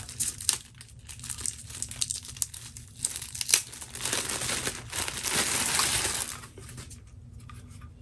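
Clear plastic bag crinkling and crackling as a power adapter is unwrapped and pulled out of it. The sound is loudest for about two seconds past the middle, then dies down to faint handling.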